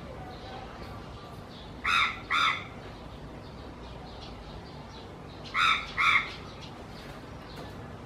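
A crow cawing: two sets of double caws, each a pair of short, harsh calls about half a second apart, the sets about three and a half seconds apart.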